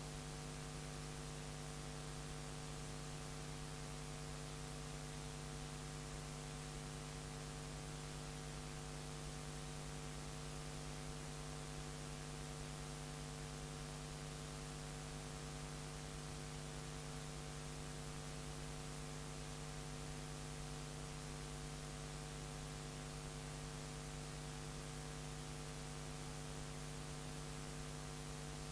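Steady electrical mains hum: an unchanging buzz made of several steady tones, the lowest strongest, over faint hiss.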